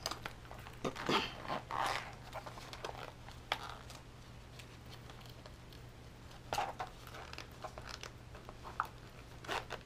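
Clear vinyl zipper pouch being handled and zipped shut: the plastic crinkles and rustles, with scattered small clicks, busiest in the first two seconds and again near the end.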